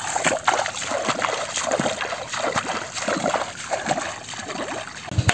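Footsteps wading through shallow, muddy paddy-field water, with an irregular splash and slosh at each step.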